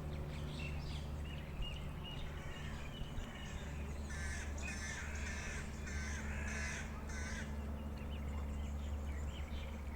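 Egyptian geese calling: a run of about five calls starting about four seconds in and lasting some three seconds, over a steady low hum.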